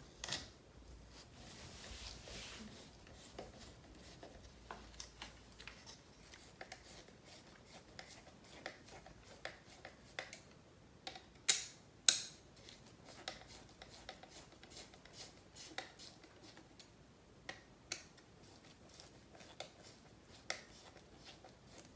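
Hand hex driver turning a countersunk screw into the plastic front end of an RC buggy chassis: faint, scattered small clicks and rubbing, with two sharper clicks a little past halfway.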